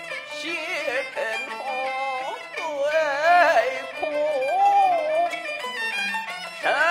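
Jinghu leading the Peking opera accompaniment through an instrumental interlude of a fan erhuang aria: a high, bowed melody that slides between notes and wavers on the held ones, with a lower bowed line beneath it.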